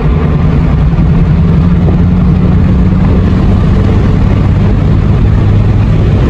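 Ford Laser TX3 being driven at speed, heard from inside the cabin: a steady low engine drone mixed with road and wind noise.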